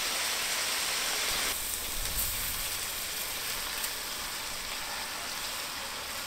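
Hot fat sizzling in a cast-iron kazan, a steady frying hiss as fried lamb is lifted out and sliced onions go into the oil; the hiss drops a little about a second and a half in.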